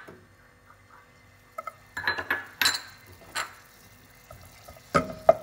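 Wooden spatula knocking and scraping against a metal saucepan while stirring chopped ginger and garlic in oil. Scattered short clinks begin about a second and a half in, and the two loudest knocks come near the end.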